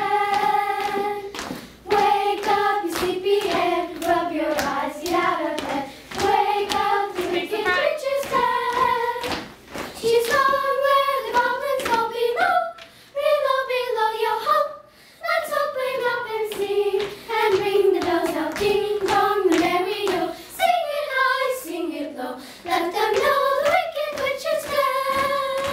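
A group of children singing a song together, in phrases with short breaks, with hand claps along with it.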